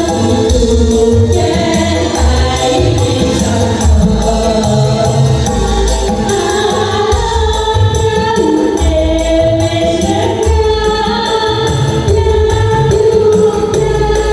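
Music: several voices singing together over a steady drum beat with jingling percussion.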